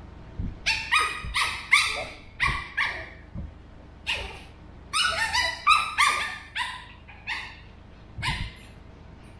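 A pug puppy barking in high-pitched, yappy barks, each dropping in pitch, in two quick runs with a short pause between them and a single bark near the end.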